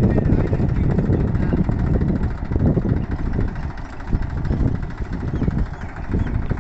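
Tractor diesel engine running steadily at low speed, with a continuous low, even firing rhythm.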